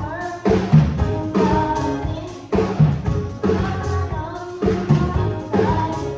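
Gospel choir singing with a live band, a drum kit keeping a steady, upbeat beat.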